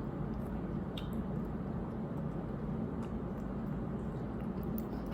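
Faint wet chewing and small mouth clicks of someone eating green grapes, over a steady low hum of room noise.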